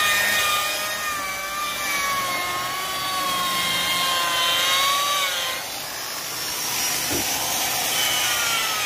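Electric rotary car polisher whining as its foam pad buffs the painted fender, over a rubbing hiss from the pad on the paint. The whine wavers slightly in pitch as the pressure changes and dips lower near the end.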